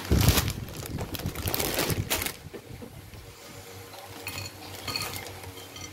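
Snacks poured from crinkly plastic snack bags onto a plate: the bag rustles and the chips clatter onto the plate, loudest over the first two seconds, then quieter rustling with a few light clinks.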